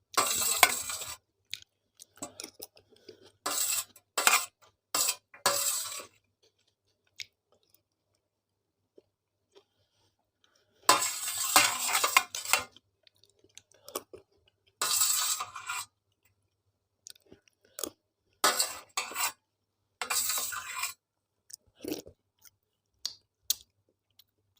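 Close-miked eating sounds in bursts with quiet gaps between them: chewing of a meal of daal, potato-fenugreek sabzi and roti, mixed with clinks and scrapes of the plate.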